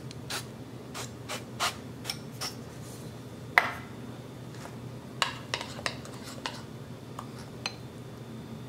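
Kitchen handling sounds: a string of light clicks and knocks, the loudest a sharp knock about three and a half seconds in, as an oil spray can and utensils are set down on the counter. Later comes a quick run of clinks, a spoon against a ceramic bowl of pancake batter as it is stirred.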